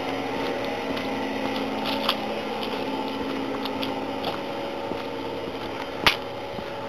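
Footsteps on a dry dirt path at a steady walking pace, over a steady hum. A sharp click comes about six seconds in.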